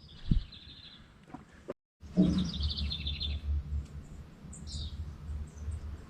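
Birds chirping: quick twittering trills twice, then a few short high notes, over a low steady hum. The audio drops out briefly about a third of the way in.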